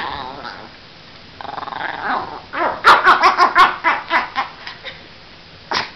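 Small long-haired dog growling, then a quick run of about eight sharp barks as it lunges at a teasing hand, tailing off. One more short sharp bark near the end.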